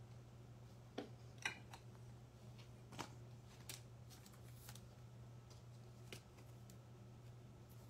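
Faint handling of trading cards: a handful of soft, separate clicks and slides as cards are set down and stood up on a table, over a low steady hum.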